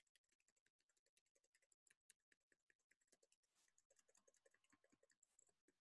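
Near silence, with very faint ticking clicks throughout.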